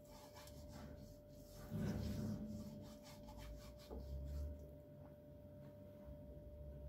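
Faint, soft rubbing strokes of a silicone pastry brush spreading oil over a nonstick frying pan, with a couple of soft low bumps as the pan is handled; the brushing stops about five seconds in.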